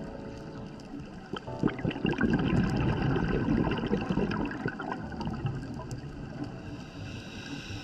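A scuba diver's exhale underwater: a loud rush of regulator bubbles starting about a second and a half in and easing off after about five seconds. A faint tail of background music fades out at the start.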